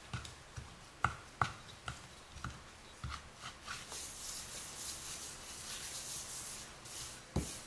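Small steel bowl pressing and working a soft sweet mixture flat in a steel thali: a few light knocks in the first three seconds, then a steady rubbing hiss as it is moved over the surface, and one sharper knock near the end.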